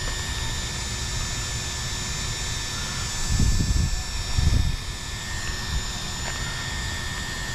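Steady outdoor background noise with a faint, constant high whine, broken by two brief low rumbles of wind buffeting the microphone a little after three and four seconds in.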